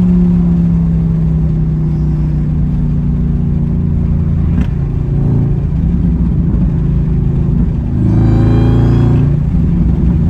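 Supercharged 6.2-litre Hemi V8 of a Dodge Hellcat, heard from inside the car while driving. Its note eases down at first, holds steady, then gets louder as it revs harder about eight seconds in.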